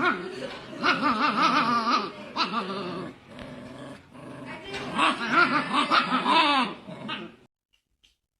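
A dog vocalizing in drawn-out sounds whose pitch wavers up and down, in two long bouts, about a second in and about five seconds in.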